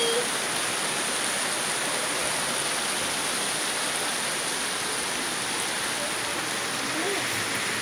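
Steady rain falling, a constant even hiss of rainfall on the street and rooftops.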